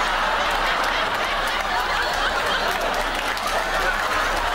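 A studio audience laughing steadily, with scattered clapping mixed in.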